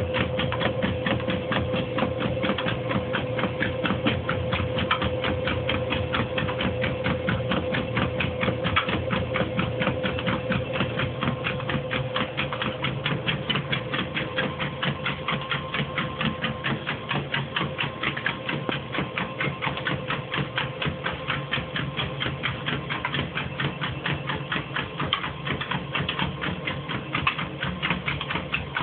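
Motorised treadmill running with a dog trotting on the belt: a rapid, even clatter with a steady motor hum that fades somewhat after the first several seconds.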